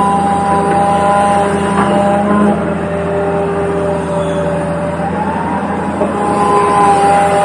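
Toy remote-control excavator running: a steady electric hum with several held whining tones that drop out, come back and shift in pitch as it is driven.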